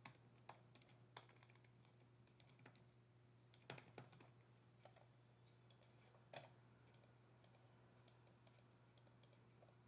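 Faint, scattered computer keyboard keystrokes and clicks, the last about six and a half seconds in, over a faint steady low hum; otherwise near silence.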